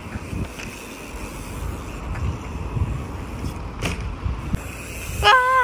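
Electric mountain bikes rolling past over tarmac, with an uneven low rumble of tyres and wind on the microphone and a sharp click about four seconds in. Near the end a short voice call that falls in pitch.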